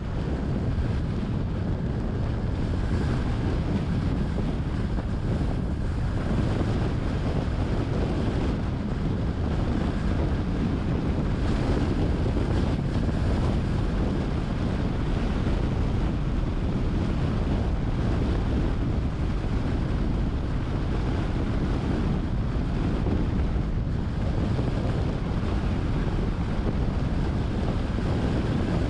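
Steady wind noise on the microphone of a camera riding on a moving car, a low, even noise with the car's road noise mixed in.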